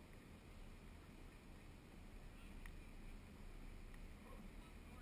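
Near silence: a faint, steady low hum with a couple of faint ticks.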